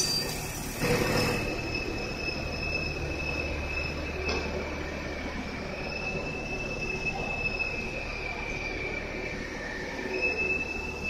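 Workshop machinery noise: a steady high whine that wavers slightly in pitch, over a low hum.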